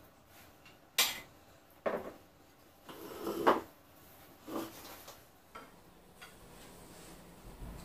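Dishes being set down on a wooden dining table: about half a dozen clinks and knocks, the sharpest about a second in and the loudest near the middle, with a chair moved as the table is laid.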